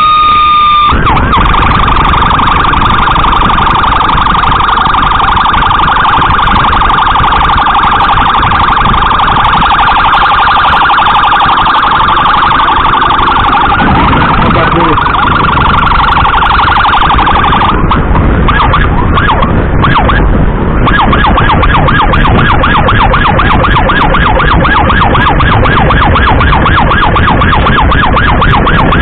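Emergency siren sounding continuously: a long steady siren tone for the first seventeen seconds or so, then switching to a fast yelp of rapidly repeating sweeps. Road and wind noise from the moving motorcycle runs underneath.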